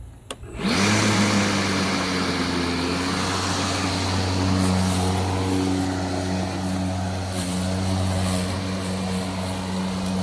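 Milwaukee battery-powered lawn mower switched on under a second in, its motor and blade spinning up quickly and then running with a steady hum. The loose power button is held in by a clamp, so the mower keeps running instead of cutting out.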